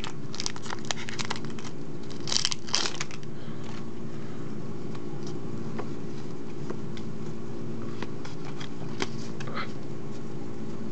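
Pokémon TCG booster pack's foil wrapper crinkling and tearing open, loudest between two and three seconds in, then light clicks of cards being handled, over a steady low hum.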